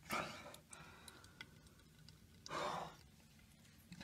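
A person's breathy exhale, heard twice: softly at the start and more strongly about two and a half seconds in, with a few faint clicks between.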